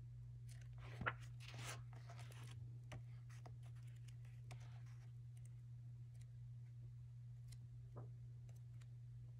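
Pages of a book being turned by hand: a light snap about a second in, then a soft paper rustle for a second or so, and another light flick of a page near the end, over a steady low hum.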